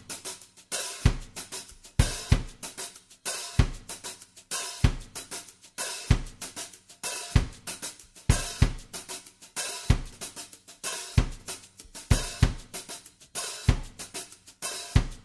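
Background music with a steady drum-kit beat: a kick drum lands about every second, with hi-hat and cymbal strokes between.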